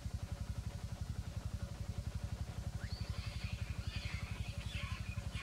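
An idling motorcycle-type engine gives a steady low pulsing rumble, about eight to ten beats a second. From about three seconds in, long-tailed macaques scream in high-pitched, wavering cries.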